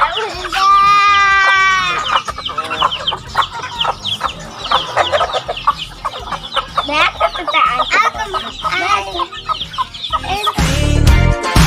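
Native chickens calling: a rooster crows once, a long call near the start, then the flock keeps up many short clucks and chirps. Music comes in near the end.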